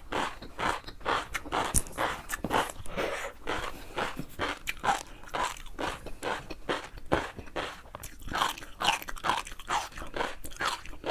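Close-miked chewing of crunchy food: a steady run of crisp crunches, several a second.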